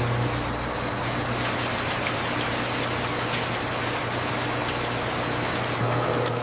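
Factory processing machinery running: a steady low hum under a constant noise, with a few faint ticks.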